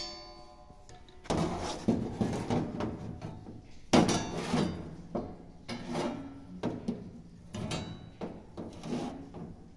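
A hinged steel exhaust rain flap being worked by hand, giving a series of irregular metal knocks and rattles as it is lifted and drops back.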